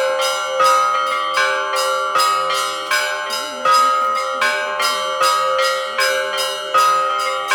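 Russian Orthodox monastery bells ringing: smaller bells struck in a quick, steady rhythm, a few strikes a second, over the lingering hum of a larger bell.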